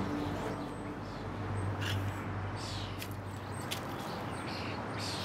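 Small birds chirping now and then over a steady low hum, with a few brief scraping sounds.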